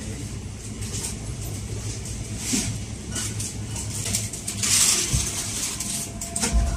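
Supermarket ambience: a steady low hum with short rustling bursts about two and a half and five seconds in, and a couple of dull thumps near the end.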